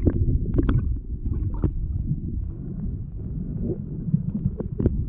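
Muffled underwater sound: a low churning rumble of moving water, with a few sharp clicks and bubble pops, most of them in the first second and two more near the end.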